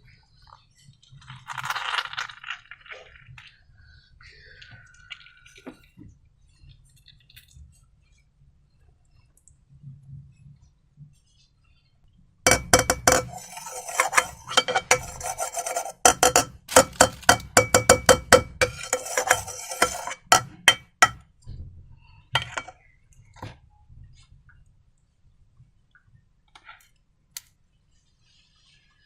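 A fast, dense run of sharp clicks and clinks with a slight ring lasting about eight seconds in the middle, with a soft rustle and a brief gliding squeak before it.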